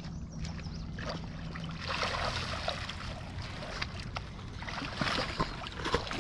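Water splashing and sloshing as a hooked catfish is scooped into a landing net in shallow water, with sharper splashes about five to six seconds in.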